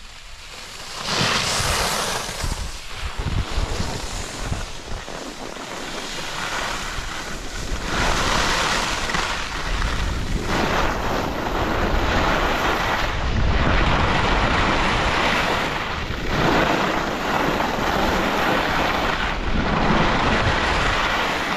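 Skis sliding and scraping over groomed snow, the rush swelling and easing every few seconds with the turns, mixed with wind blowing across the microphone.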